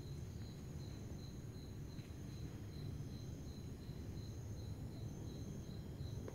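Crickets chirping: one with a steady chirp about four times a second, another higher-pitched in longer trills, over a low steady rumble.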